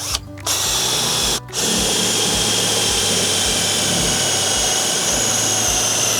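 Power drill with a flat bit boring the spindle hole through a garden gate. It starts about half a second in, pauses briefly around a second and a half, then runs steadily until it stops near the end.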